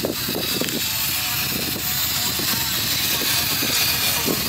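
Indistinct voices talking in the background over a steady hiss of outdoor noise.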